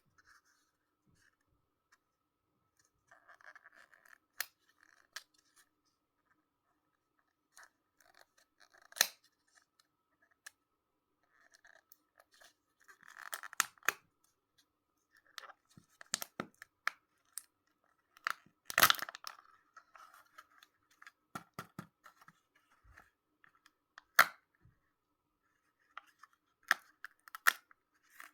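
Sweet wrappers and plastic packaging being handled and torn open: intermittent crinkling and rustling with scattered sharp clicks, the loudest a little past halfway.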